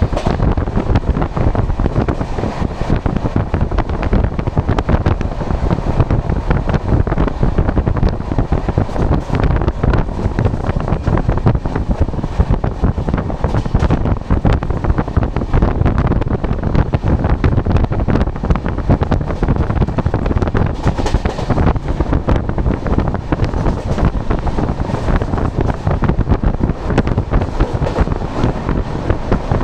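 Wind rushing and buffeting over the microphone at the open door of a moving Rajdhani Express coach, over the steady rumble of its wheels running on the rails.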